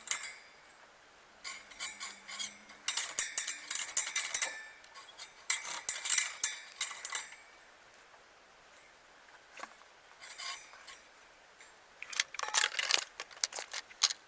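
Light metallic clinking and rattling of bicycle wheel parts being handled, coming in four bursts of rapid clicks with quiet gaps between.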